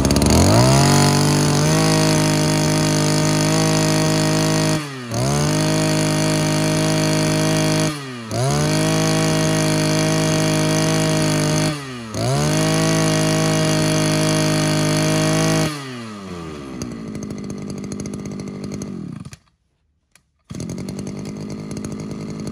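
Shindaiwa 26cc two-stroke brush cutter engine held at high revs, with the throttle let off briefly three times so the revs dip and climb straight back. About two-thirds through it drops to a steady idle, goes silent for about a second, then idles on.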